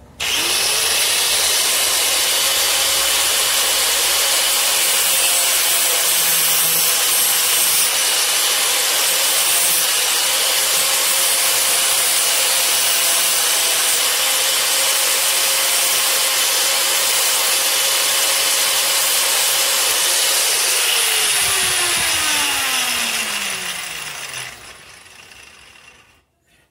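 Electric angle grinder with a thin cutting disc running at full speed with a steady whine, cutting through a braided stainless aeroquip brake hose wrapped in electrical tape. About 21 seconds in it is switched off, and the whine falls as the disc spins down, dying away near the end.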